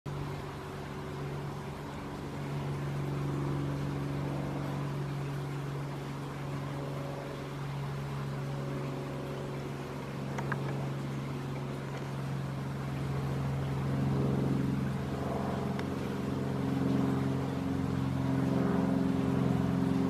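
An engine running steadily in the background, a low even drone that grows louder in the second half.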